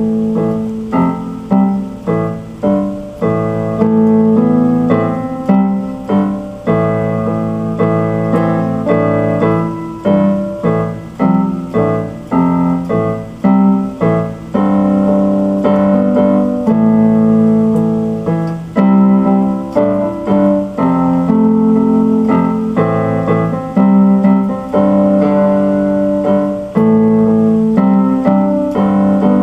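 Instrumental piano music: keyboard notes and chords struck one after another and left to ring.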